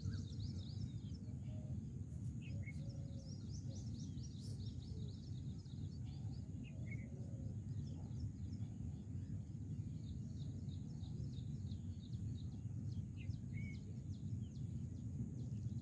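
Small birds chirping in quick runs over a steady low outdoor rumble; the chirping is busiest in the first few seconds, with only a few scattered calls after.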